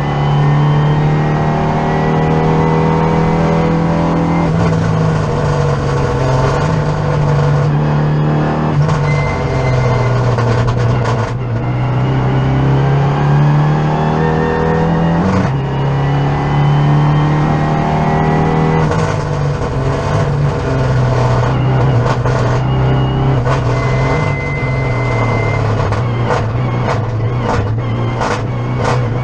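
Renault Mégane RS's turbocharged 2.0-litre four-cylinder engine under hard acceleration, heard inside the cabin: the pitch climbs through each gear and steps down at the upshifts, with one jump up at a downshift about fifteen seconds in. A run of sharp cracks comes near the end.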